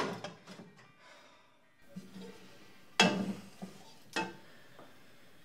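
A man's sharp, exasperated exhales and sighs, two of them about a second apart, over a quiet kitchen background.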